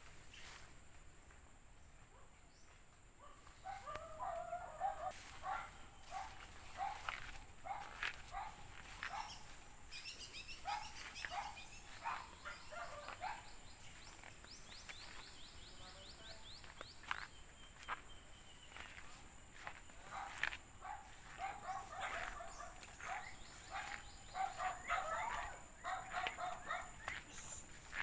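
Many short animal calls repeated over and over, with two rapid high trills.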